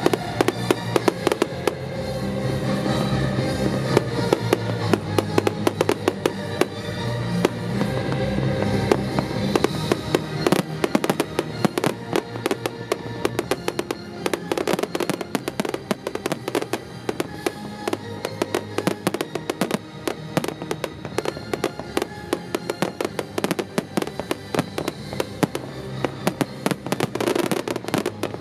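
Fireworks display: a rapid, continuous run of bangs and crackles from aerial shells, growing denser about halfway through into a near-unbroken barrage. Music plays underneath during the first part.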